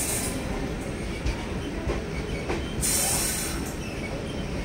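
Indian Railways passenger train rolling slowly beside a second train, with a steady low rumble from the wheels and track. A short high hiss comes at the start, a couple of faint knocks follow, and a longer, louder high screech-like hiss comes about three seconds in.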